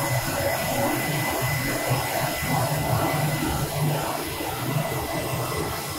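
Focus Alpha Max 6250 UV flatbed printer running a nozzle check print: a steady mechanical whir as the flatbed feeds the test plate under the print head.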